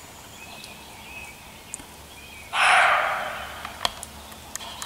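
A deer barking in the dark: one harsh, hoarse bark about two and a half seconds in, fading over about a second. Faint high chirps and a few small clicks sit under it.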